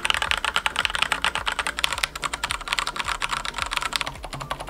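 Fast typing on a Logitech K835 TKL mechanical keyboard with TTC Red linear switches and ABS keycaps: a dense, rapid clatter of keystrokes. Near the end it gives way to somewhat quieter typing on a Leopold FC900R with Cherry MX Silent Red switches.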